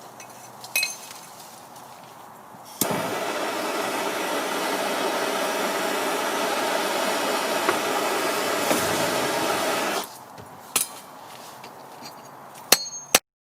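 Blowtorch flame running steadily for about seven seconds, starting and stopping abruptly. A few sharp metallic clinks come before it and near the end.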